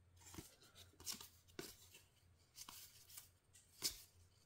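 Faint rustle and flick of baseball trading cards (1991 Leaf) being slid off a stack one at a time, about six short card-on-card swipes, the loudest near the end.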